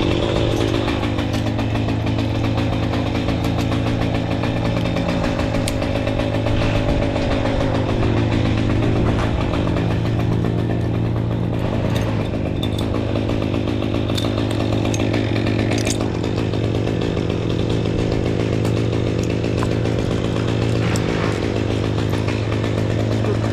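An engine running steadily, with a constant low drone and a wavering higher tone over roughly the first eight seconds.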